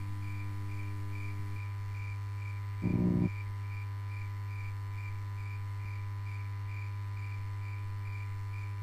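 Electronic intro music: a steady low drone under a high tone that pulses evenly about three times a second, with a short low hit about three seconds in.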